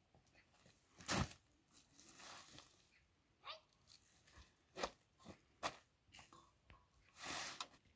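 Scattered knocks and clinks of metal dishes being handled and set down, the loudest about a second in, with a short rustle near the end.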